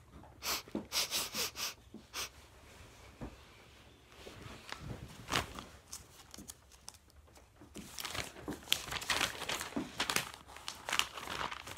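Close rustling and handling noise: brief crinkly scrapes and knocks in a flurry during the first two seconds, then again in a longer flurry from about eight seconds in.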